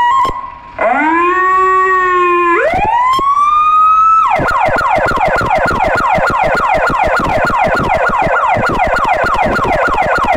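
Electronic siren of a Renault GBA 1.9/24 fire truck being tested. It starts about a second in with a rising tone that steps up higher, then changes near the middle to rapid, repeated falling sweeps.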